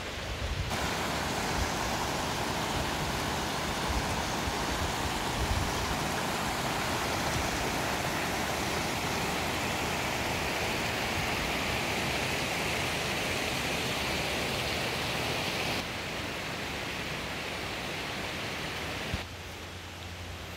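Shallow rocky creek rushing over small rapids: a steady hiss of running water that sets in sharply about a second in and drops off in two steps over the last few seconds.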